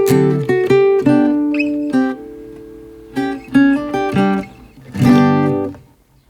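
Acoustic guitar music: strummed chords that stop about six seconds in.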